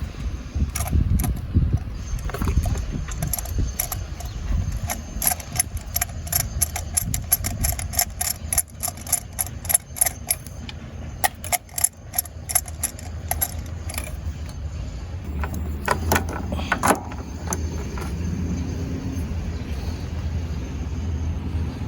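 Ratchet wrench with a spark plug socket and extension clicking in quick runs of strokes as a spark plug is loosened and backed out of a Ford 5.4L three-valve V8, with a few louder clicks later on.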